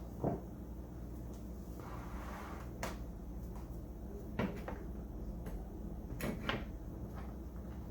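A handful of sharp knocks and clunks, about five, two of them close together near the end, with a short rustle about two seconds in: hard objects being handled and set down.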